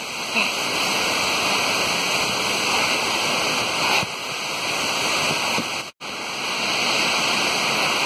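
Steady rush of a waterfall in monsoon flow, heard close up. The sound cuts out for an instant about six seconds in.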